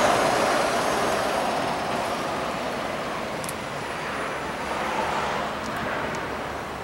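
Motor vehicle noise: a steady rushing without a clear engine note, slowly fading.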